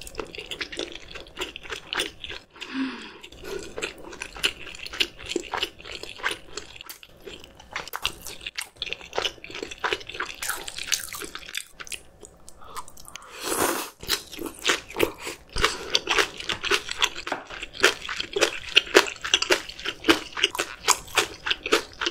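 Close-miked eating: wet chewing with many quick, crisp crunches, a monkfish-liver gunkan roll being bitten and chewed.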